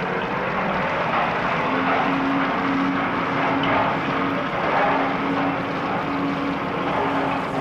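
Sound effect of the Firefly, a tracked rubble-clearing vehicle, working: a steady engine drone that comes and goes, under a loud, dense rushing noise.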